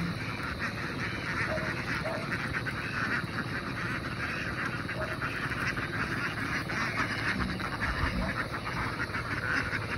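A large flock of domestic ducks quacking all at once in a dense, continuous chorus of overlapping calls.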